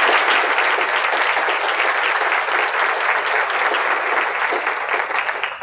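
Audience applauding steadily, cut off abruptly at the end.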